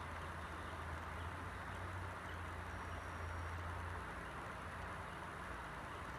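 Banvil Envirofan Gold Line industrial ceiling fan running on low speed through a variable speed control: a steady airy whir with a low motor hum that eases off about four seconds in.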